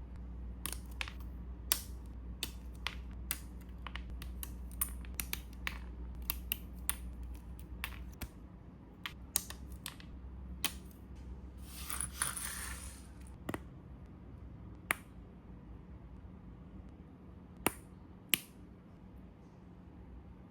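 Small hard plastic parts of a snap-fit model kit clicking and snapping as they are handled and fitted, many sharp clicks in quick succession at first and then fewer and more spaced out, with a brief rustle a little past the middle. A low hum underneath stops partway through.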